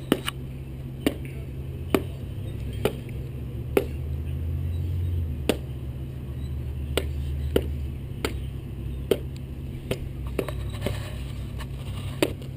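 About a dozen sharp clicks or cracks, coming roughly once a second at an uneven pace, as small hard pieces are snapped or knocked against asphalt, over a steady low hum.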